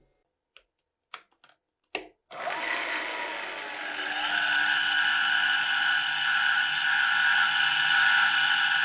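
A few light clicks, then about two seconds in a handheld power tool is switched on and runs steadily with a high whine.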